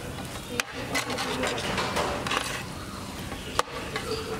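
Metal spatula stirring and scraping fried rice across an iron griddle plate, with a few sharp clicks as it strikes the metal.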